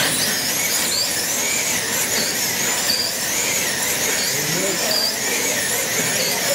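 Several wing slot cars racing on a banked track, their small electric motors whining at a high pitch that rises and falls again and again as they slow into the turns and speed up out of them.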